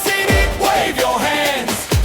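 Upbeat pop-style background music with a sung melody and a deep, falling electronic kick drum.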